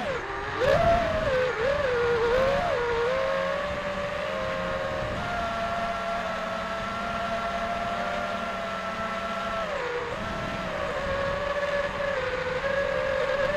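Armattan Marmotte FPV quadcopter's Xing 2450kv brushless motors and propellers on 4S, heard from on board: a whine that swings up and down in pitch with the throttle, over wind rush on the microphone. The pitch holds fairly steady for several seconds in the middle, dips sharply, then wavers again.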